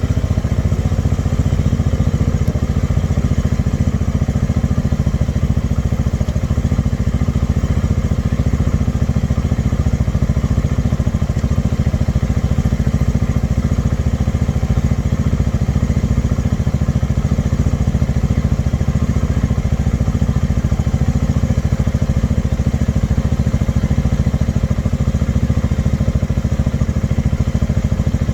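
Bajaj Dominar 400 UG's single-cylinder engine idling steadily, a dense, even low pulse with no revving.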